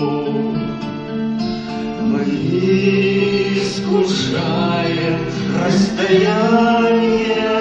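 Singing voices of a romance, with acoustic guitar accompaniment, holding long notes.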